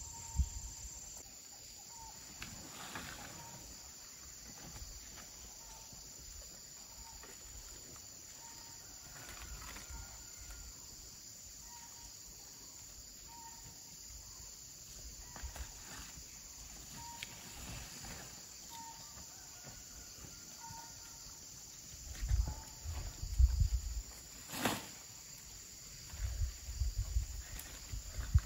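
Insects droning in a steady high chorus, with a short high call repeating about every second and a half. Near the end come low thumps and rustling, with one sharp crack.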